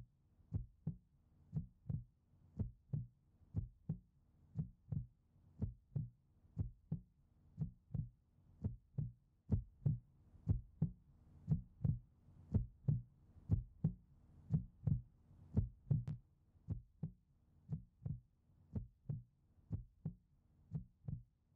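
Steady, heartbeat-like thumping, about two beats a second, over a faint steady low hum.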